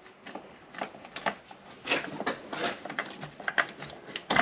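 Irregular light metal clicks and scrapes of a small wrench loosening the clamp nut on a car battery's positive terminal.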